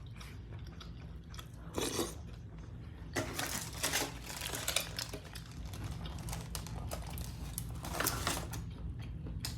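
Close-miked chewing of tortilla and soup: a long run of irregular wet mouth clicks and smacks, getting busier about three seconds in.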